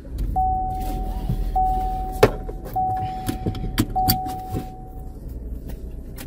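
A car's engine starts and runs at idle while the dashboard warning chime gives four long, steady beeps at one pitch. A sharp click about two seconds in, among smaller clicks and rustles, is the seatbelt buckle latching.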